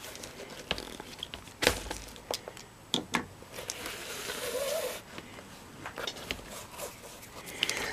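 Handling noise from threading cord through a leather moccasin with pliers: scattered small clicks and rustles of the pliers, plastic sewing clips, leather and cord, with a sharper click about a second and a half in and a stretch of rubbing hiss a little past the middle.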